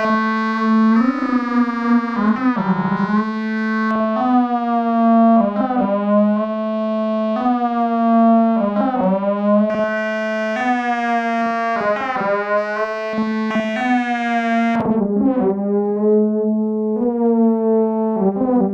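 Pittsburgh Modular Voltage Lab 2 analog synthesizer playing a line of notes, each about a second long and sliding in pitch as it starts, over a steady low drone. About three-quarters of the way through the tone turns darker as its upper overtones fall away.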